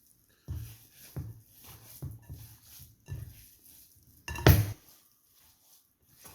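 Ground venison stuffing being mixed in a bowl: a run of strokes a little under a second apart, then one loud clatter about four and a half seconds in.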